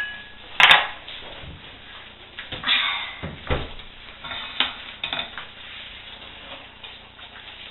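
Kitchenware clinking and knocking: a sharp metal serving-spoon clink with a brief ring about a second in, then several quieter knocks and clatters as the spoon is set down on the worktop and things are moved.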